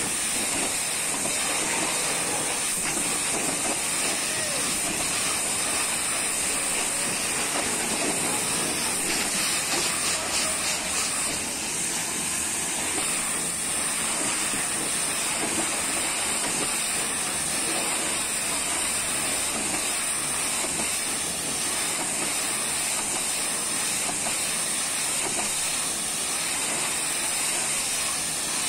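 High-pressure water jet from a pressure-washer lance hissing steadily as it sprays the side of a truck's box body and fuel tank, with water spattering off the panels.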